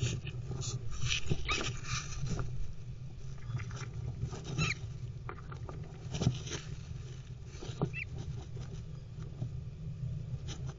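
Adelaide rosella shuffling and scratching about on the wood-shavings floor of its nest box as it settles onto the eggs and chick, with irregular rustles and a few short squeaky notes over a steady low hum.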